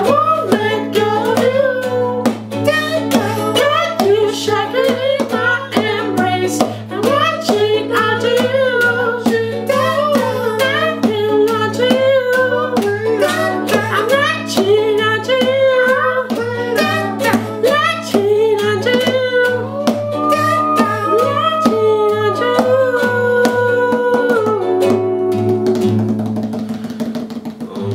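Acoustic cover music: strummed guitar and ukulele with sharp hand-drum hits on a chair and a singing voice, over a steady low drone. Near the end the singing and strumming drop away, leaving the drone.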